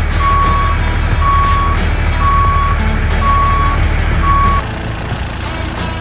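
A vehicle reversing alarm beeping steadily, six beeps about once a second, over a low engine rumble. The beeping stops near the end and the rumble drops quieter.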